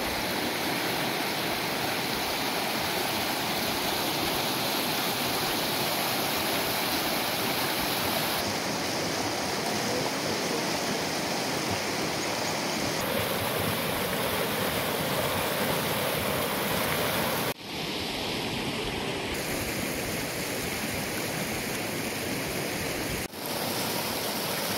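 Muddy floodwater rushing and churning in a steady noise, pouring through breached field embankments and over stones. Its texture changes abruptly a few times, with two short dropouts.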